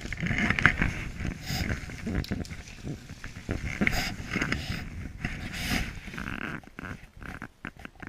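Irregular crunching and scuffing in deep snow, several strokes a second with a few louder ones, over a low rumble.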